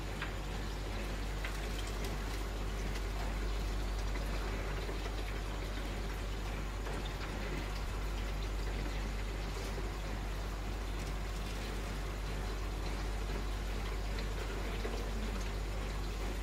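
Steady running water of an aquarium's filtration, water circulating and splashing in the tank, over a low, constant hum.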